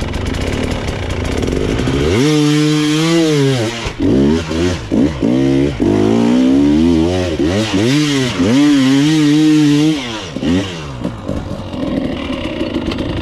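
Dirt bike engine revved hard through a string of throttle bursts, its pitch climbing and falling again and again for about eight seconds, then settling back to a lower steady running sound near the end. This is the throttle being worked on a technical section of trail.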